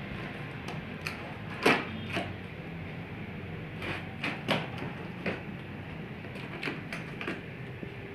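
Scissors cutting the packing tape and cardboard of a laptop box: scattered short sharp snips and scrapes, over a steady low hum.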